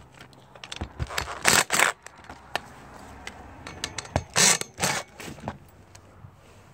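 Handling noise on an asphalt-shingle roof: a few short scraping and rustling sounds and light knocks as a cordless drill and the metal dish mast are moved about. The two loudest scrapes come about a second and a half in and again a little after four seconds.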